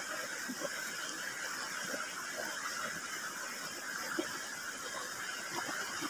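Steady rush of a shallow, rocky river flowing, with small wet chewing and smacking sounds scattered through it from someone eating spicy chicken feet by hand.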